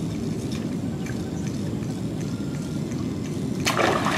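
A predatory fish strikes a topwater pencil lure, a sudden loud splash near the end, over a steady low rumble.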